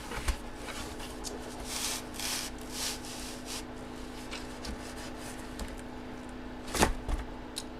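A sealed trading-card box being opened by hand: packaging rustling and rubbing in a run of short strokes, then a single sharp snap near the end.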